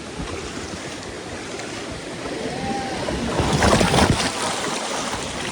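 River water rushing and splashing around inner tubes, with a louder surge of splashing about three and a half seconds in.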